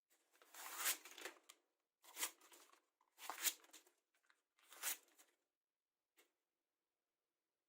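Knife blade drawn in four rasping strokes, a little over a second apart, followed by a single faint click.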